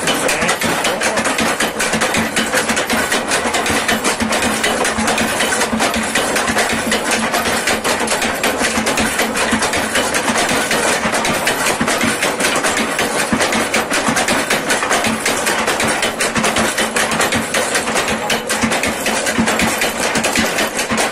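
Home-built miniature erva-mate stamp mill (soque de erva) running: an electric motor turns a belt-driven shaft that lifts wooden pestles and drops them, giving a rapid, continuous clatter of wooden knocks over a steady hum.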